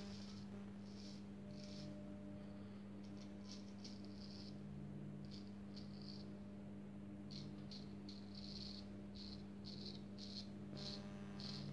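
Kropp straight razor shaving through lathered stubble in short, quick strokes, each a brief faint scratchy rasp, about one a second. The edge is freshly honed on diamond lapping films.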